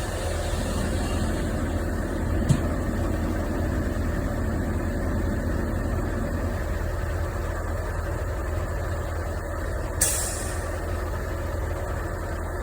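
Heavy truck engine running steadily at a low, even hum. There is a sharp click about two and a half seconds in, and a short hiss about ten seconds in.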